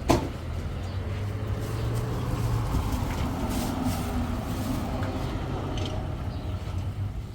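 A motor vehicle's engine running steadily with a low hum, with a sharp click just after the start.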